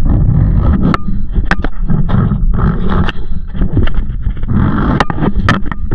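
Zip-line ride: a steady rumbling scrape of the trolley running along the cable, with wind buffeting the microphone and scattered knocks.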